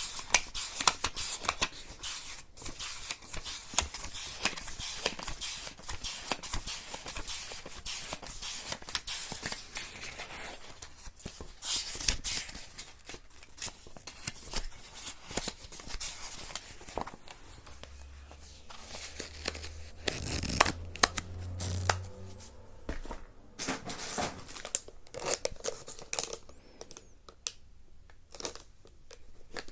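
Close-miked ASMR crinkling and crackling from something being handled. It is dense and busy at first, then thins out into sparser crackles about halfway through, with a brief low hum in the middle.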